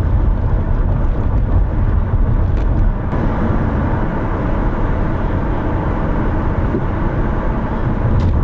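Steady low rumble of a motor vehicle driving, with road noise.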